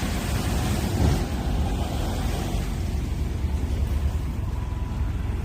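Steady low rumbling background noise with no distinct events, slightly louder about a second in.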